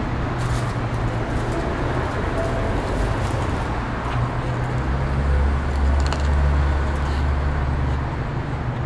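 Low rumble of road traffic, swelling for a few seconds from about five seconds in as a vehicle goes by, with a few faint short clicks over it.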